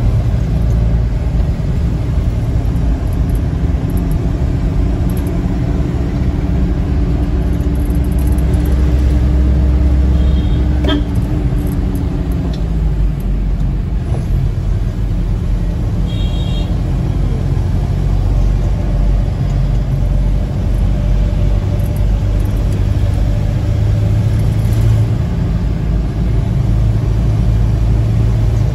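Engine and road noise of a moving vehicle heard from inside its cabin: a steady low rumble throughout.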